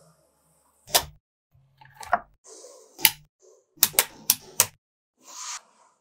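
Small magnetic balls snapping together in sharp single clicks, with a quick run of four clicks about four seconds in. Between the clicks come short rattling slides of the balls against each other.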